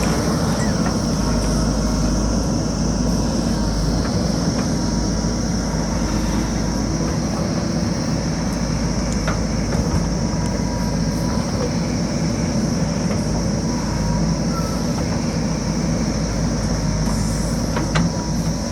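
JCB backhoe loader's diesel engine running steadily under load, a dense heavy rumble, with a few sharp metallic knocks from the working machine.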